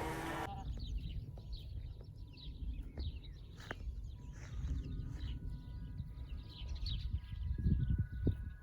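A cow's moo cuts off half a second in. Then comes outdoor ambience: a low wind-like rumble, many short, high bird chirps, and now and then a sharp click.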